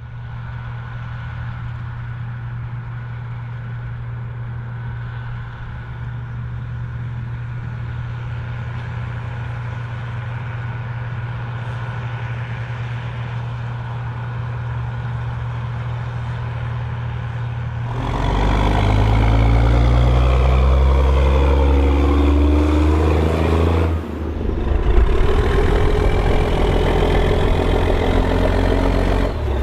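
Case IH 1455 XL tractor's diesel engine running steadily, then about eighteen seconds in it gets much louder and revs, its pitch sweeping up and down. It dips briefly near twenty-four seconds and runs loud again.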